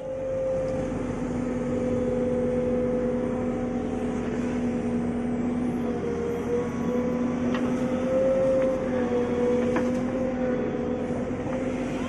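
JCB backhoe loader's diesel engine running steadily, with a few faint clicks.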